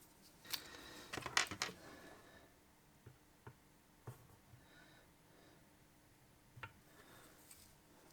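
Faint handling noises of small objects being worked by hand: a cluster of scraping and rustling between about half a second and two seconds in, then a few scattered short clicks.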